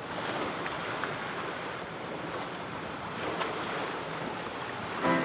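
Steady rush of waves and water along the hull of a sailboat under way, with wind on the microphone. Music comes in at the very end.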